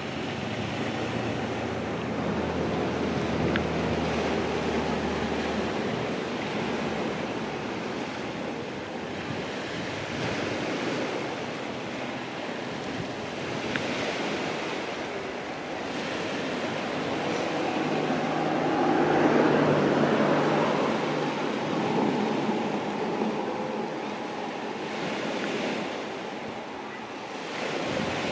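Sea waves washing onto the shore in slow swells, loudest about two-thirds of the way through, with some wind. A steady low hum runs under it for the first few seconds and returns briefly near the swell's peak.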